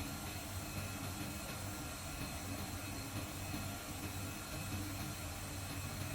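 CNC vibrating-knife gasket cutting machine running: a steady hum with an even hiss over it.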